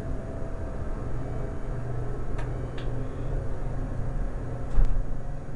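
Montgomery hydraulic elevator running: a steady low hum with a faint steady whine, two light clicks in the middle, and a thump near the end.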